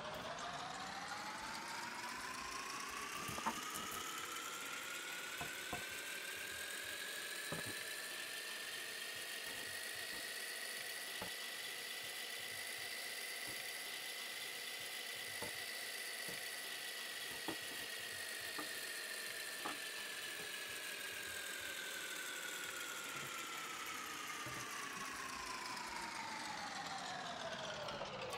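A whirring sound effect over a steady hiss: its pitch slowly rises for about twelve seconds, then falls back just as slowly, with a few faint clicks scattered through it.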